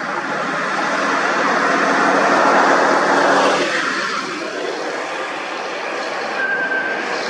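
Road vehicle engine and tyre noise with a steady low hum, swelling to its loudest about three seconds in and then easing off.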